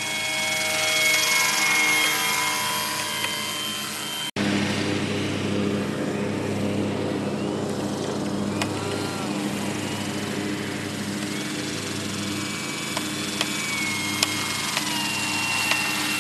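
Radio-controlled model autogyro in flight: the high whine of its motor and propeller shifts in pitch with the throttle over a steady low engine drone. The sound drops out for an instant about four seconds in.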